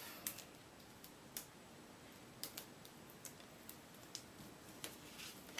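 Faint, scattered light clicks and ticks of hands handling cardstock pieces and peeling the liners off foam adhesive dots.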